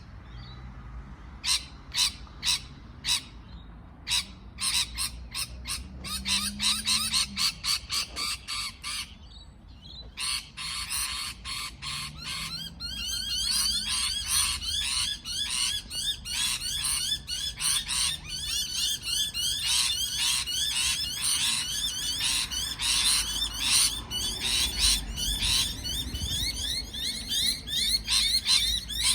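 Parrots chirping: series of short, sharp, high chirps, spaced out at first, then from about halfway through a dense, continuous chatter of fast repeated calls.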